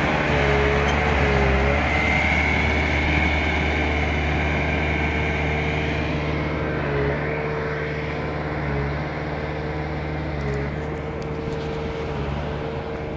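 JCB backhoe loader's diesel engine running steadily, slowly getting fainter over the stretch.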